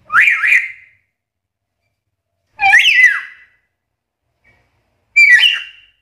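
Black-capped lory giving three short, loud whistled calls about two and a half seconds apart, each with its pitch swooping up and down.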